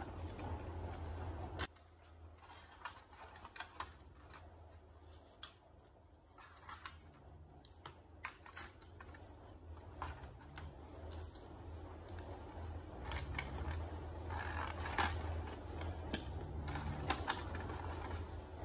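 Small plastic toy doctor tools being set into a hard plastic toy case: scattered light clicks and taps at an irregular pace, over a steady low hum.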